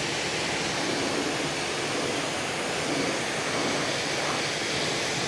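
Hotstarr high-pressure washer spraying a steady jet onto a car, a continuous even hiss of rushing water.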